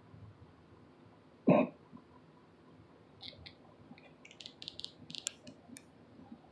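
A man clears his throat once, briefly, about a second and a half in. From about three to six seconds in comes a scatter of light, high clicks and ticks.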